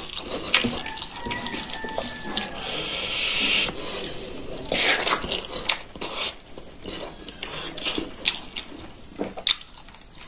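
A person eating smoked pork feet and rice by hand: wet chewing and lip-smacking with many short sharp mouth clicks, and a few soft swishes of fingers scooping rice.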